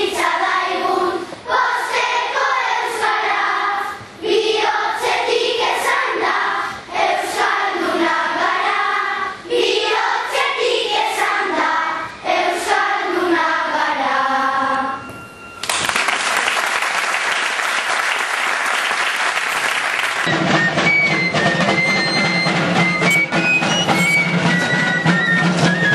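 Children's choir singing a song in Basque, which ends about 15 seconds in. Applause follows for about five seconds, then instrumental music starts with held notes over a low drone.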